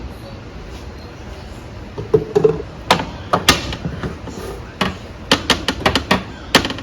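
Irregular sharp taps and knocks of kitchen utensils and containers on hard surfaces, coming in clusters through the latter part, during sandwich-making.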